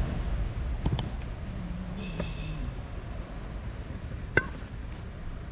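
Camping gear being handled and packed into a backpack: soft rustling with a couple of sharp clicks, one about a second in and one near four and a half seconds, over a steady low rumble.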